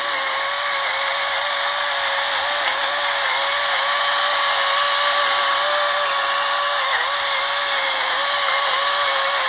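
Electric salt grinder running without a break while it grinds coarse pink Himalayan salt: a steady small-motor whine over a hiss of grinding salt.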